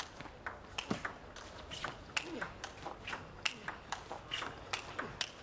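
Table tennis rally: a celluloid ball struck by rubber-faced rackets and bouncing on the table, a quick, irregular series of sharp clicks, several a second.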